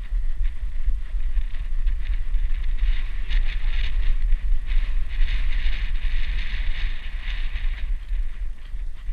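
Low rumbling buffeting and rubbing noise on a GoPro strapped to a dog as it moves, with a rough hiss that swells in the middle.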